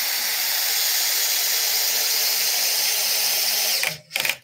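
Cordless drill running at a steady speed as it bores into the pine frame. It stops near the end, then gives a short second burst.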